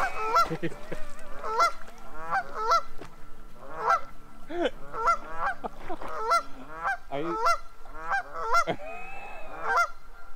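A flock of Canada geese honking repeatedly, several birds calling over one another in quick two-part honks, agitated by a dog swimming toward them.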